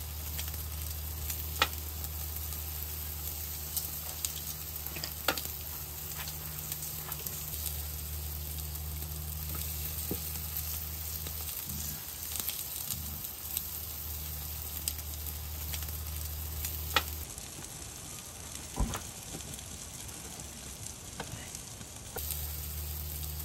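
Pork back ribs sizzling steadily on a gas grill, with scattered sharp pops from the cooking meat. Under it runs a steady low hum that drops out for a few seconds near the end.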